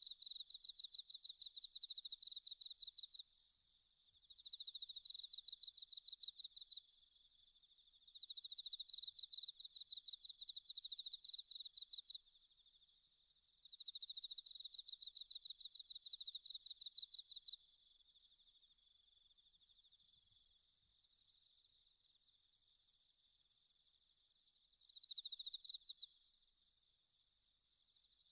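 An insect chirping in rapid pulsed trills, in bouts of a few seconds with short gaps between, fainter in the latter part.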